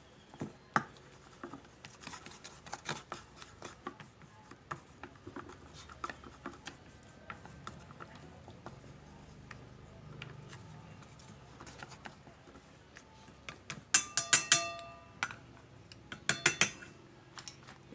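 A utensil beating raw duck eggs mixed with catfish roe in a bowl, with light irregular clicks against the bowl. Near the end come a few loud, ringing taps on the bowl, in two quick clusters.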